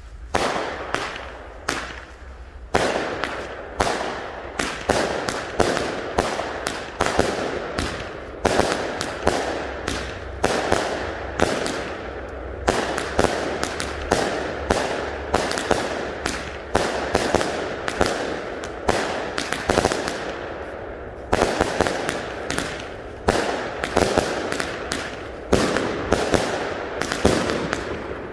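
Consumer firework cakes ('Creepy Freak Show', four chained together for 64 shots) firing in sequence: a steady run of sharp shots and aerial breaks, about two a second, fainter for the first couple of seconds.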